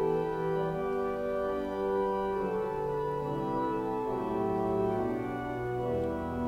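Church organ playing slow, sustained chords that change every second or so.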